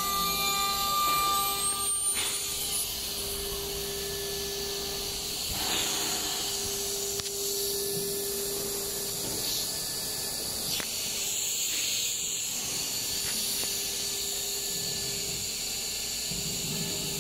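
Acctek ATC CNC router running with a steady hiss and a low hum. A high whine rises in pitch over the first few seconds.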